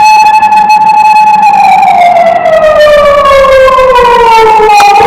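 Loud emergency-vehicle siren wailing: it holds a steady tone, then slowly falls in pitch for about three seconds and begins to rise again at the end.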